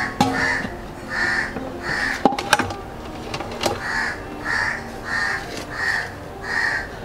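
A crow cawing repeatedly: a few short harsh caws, then a pause, then an evenly paced run of caws about every half second. A couple of sharp knocks fall in the pause.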